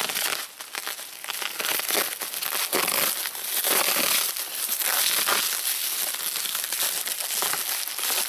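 Black plastic parcel wrapping crinkling and crackling as it is pulled and torn open by hand, in uneven swells.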